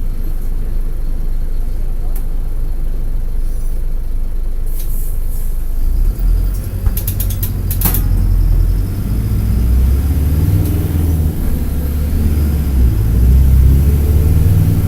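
Mercedes-Benz OM-924 LA four-cylinder turbodiesel of an OF-1722M articulated bus running under way, heard from on board as a steady low rumble. About six seconds in the engine note grows louder and deeper as it pulls harder, with a few sharp clicks around seven to eight seconds.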